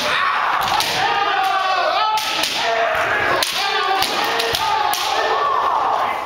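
Kendo players shouting kiai over one another while bamboo shinai clack and strike, with a few sharp cracks among them.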